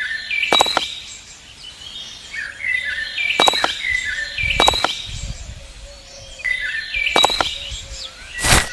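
Small birds chirping in short, repeated phrases, with several sharp clicks or knocks scattered through and a louder knock near the end.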